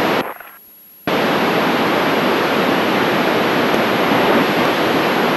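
FM radio receiver static, heard while tuned to the International Space Station's amateur radio downlink: a brief burst of hiss at the start, then about a second in a loud, steady rush of noise that starts abruptly, as an open squelch does when no clear station comes through.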